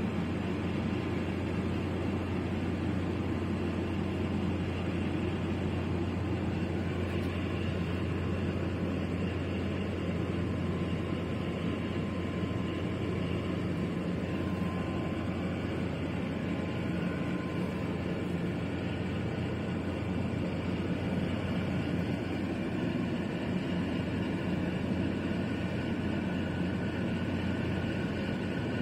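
Steady low rumble of a large container ship passing close by, its engine drone carrying a broad hiss above it, with no change in level.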